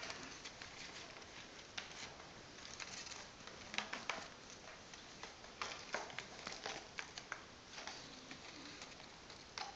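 Faint, irregular light taps and rustles as a feather wand toy is swished and dragged over a fabric-covered surface and a kitten bats at it with its paws.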